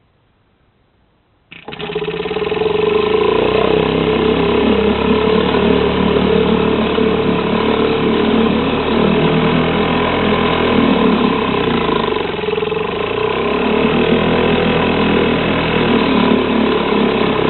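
1947 Sea King 1 hp single-cylinder two-stroke outboard motor pull-started about a second and a half in, catching at once and running steadily.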